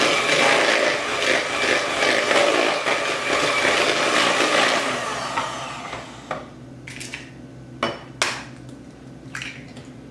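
Electric hand mixer beating creamed butter, sugar and egg in a ceramic bowl, running steadily and then switched off about halfway through. A few sharp knocks and clinks follow as the mixer is set down against the bowl.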